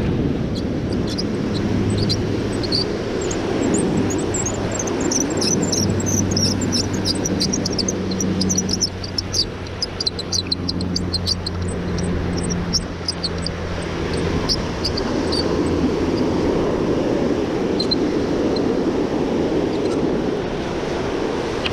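Surf washing around the legs and wind on the microphone, with the steady drone of a propeller aircraft passing through the first two-thirds and fading out around the middle. A run of quick, high clicks is heard while a fish is wound in.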